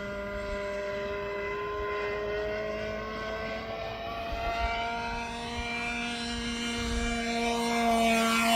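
Radio-controlled model plane's motor and propeller humming steadily as it flies overhead. Over the last few seconds it grows louder and rises slightly in pitch as it comes closer.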